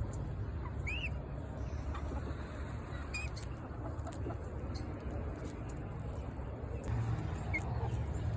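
Young chicken (an adolescent chick) giving a few short, high peeps, about three across the stretch, over a steady low rumble.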